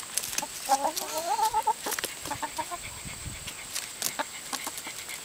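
Backyard chickens clucking, with one drawn-out wavering call about a second in and a few short clucks a little later, among scattered short sharp taps.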